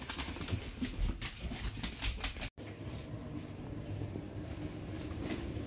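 Dogs' claws clicking and tapping on a hard floor and their cot beds as several dogs move about, a quick irregular patter of ticks with some rustling.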